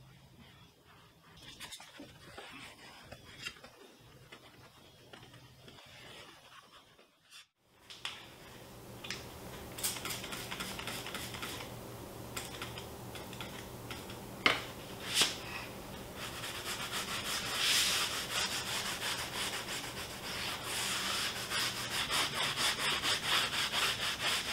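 Foam applicator pad rubbing tire dressing onto a tire sidewall, a continuous scrubbing that grows louder and falls into a quick back-and-forth rhythm near the end, broken by a few short squirts of a trigger spray bottle. Before that, for the first several seconds, a microfiber towel faintly wipes dashboard plastic.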